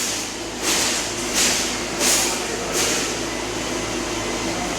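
Fence panel mesh welding machine running with a steady hum, with a short burst of hiss about every 0.7 s as it cycles through its welds; the hissing stops about three seconds in while the hum goes on.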